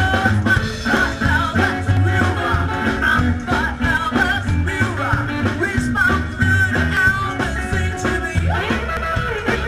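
Live rock and roll band playing: a woman's sung vocal over a pulsing upright double bass line and drum kit.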